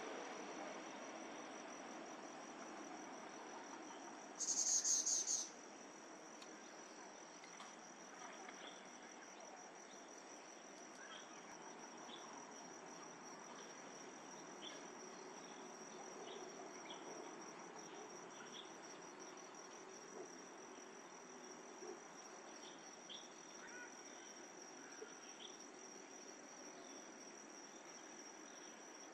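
Steady, high-pitched trill of crickets. About four and a half seconds in, a much louder buzzy burst lasts about a second.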